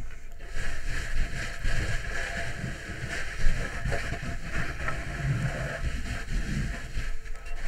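Fire hose nozzle flowing water onto the fire during an interior knockdown: a steady rushing hiss over a low rumble, starting about half a second in, with one sharp knock near the middle.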